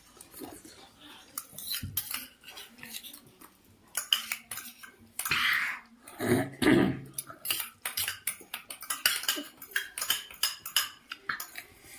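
Spoons or forks clinking and scraping against plates as people eat instant noodles quickly, a scatter of irregular short clicks.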